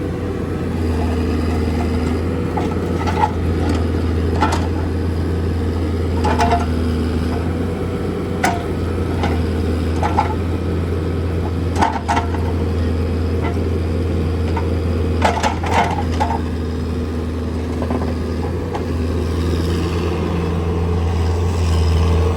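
Bobcat 331 mini excavator's diesel engine running steadily, with sharp knocks and clanks every second or two.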